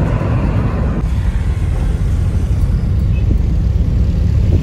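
Steady low rumble of a moving car heard from inside the cabin: engine and road noise, with the higher hiss dropping away about a second in.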